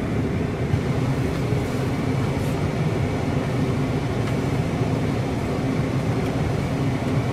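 Steady rush of air from a 2008 Mercury Grand Marquis's climate-control blower running nice and strong through the floor vents, over the car's V8 idling underneath. The steady airflow shows the repaired EATC vacuum controls are now routing air correctly.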